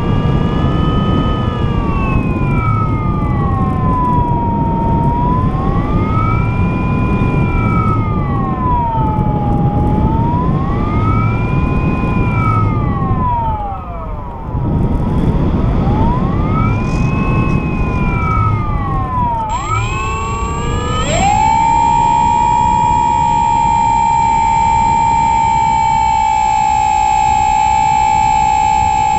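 RC model aircraft's motor whining, its pitch swinging up and down every few seconds with the throttle, over heavy wind rush on the onboard camera. About two-thirds of the way through, the pitch climbs and then holds steady.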